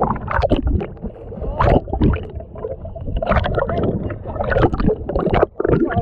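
Water gurgling and sloshing, heard muffled by a camera dipped underwater, with irregular splashes throughout.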